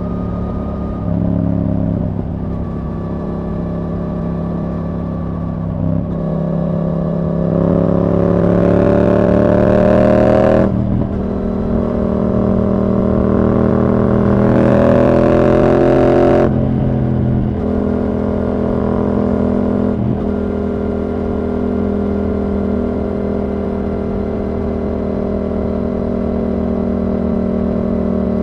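Yamaha R7's 689 cc parallel-twin engine through a Yoshimura R77 exhaust with the dB killer removed, running at a steady cruise. Twice in the middle it accelerates hard, the pitch climbing for a few seconds and then cutting off sharply, before settling back to a steady cruise.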